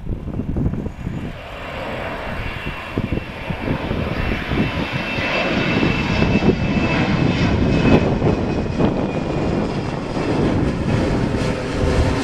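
Twin-engine Embraer E-Jet airliner climbing out overhead after takeoff: a steady turbofan roar that builds to its loudest about eight seconds in, with a faint high whine early on. Gusts of wind buffet the microphone.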